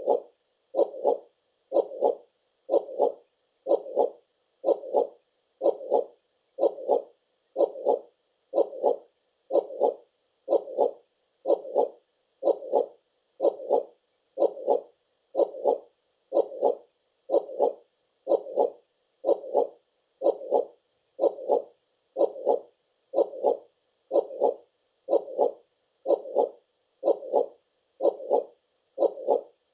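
Heartbeat sound: a steady beat repeating about once a second, around sixty beats a minute.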